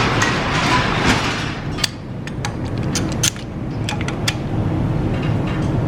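A rushing hiss at first, then a series of sharp metallic clicks and clinks, about seven over two and a half seconds, as a brake caliper piston press tool is handled and fitted. A steady low rumble runs underneath.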